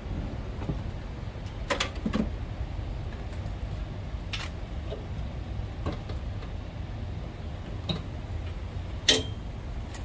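A handful of short sharp clicks and taps, the loudest near the end, over a steady low background rumble: pliers and hands working the wire connectors on the fan capacitor of an air-conditioner outdoor unit.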